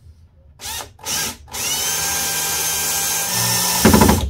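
AEG cordless drill driving a screw through an aluminium bracket: two short blips of the motor, then a steady run of about two and a half seconds that gets louder just before it stops.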